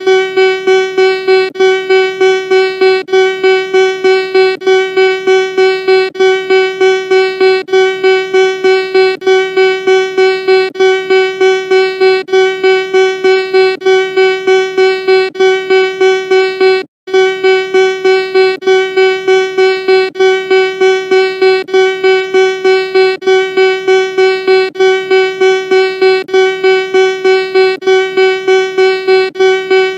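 Homemade emergency alert alarm: one steady electronic tone with many overtones, pulsing rapidly in loudness, a few beats a second. It breaks off for an instant about seventeen seconds in, then carries on.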